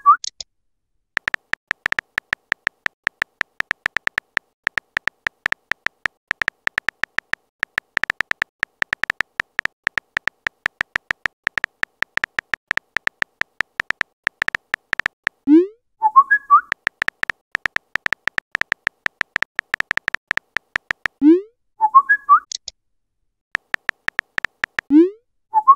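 Phone keyboard typing sound effect: fast, continuous key clicks, each with a short high tick. The clicks stop three times, a little past halfway and twice near the end, for a message-sent notification: a short rising swoop, then a chirp.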